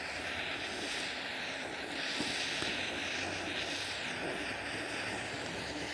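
Small pocket torch lighter flame hissing steadily as it is played over the sugar topping of a crème brûlée to caramelize it.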